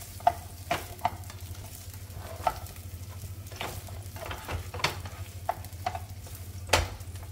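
Onion chunks being dry-roasted and turned with a spatula in a nonstick frying pan: a light sizzle with irregular scrapes and taps of the spatula against the pan over a low steady hum. The loudest knock comes near the end.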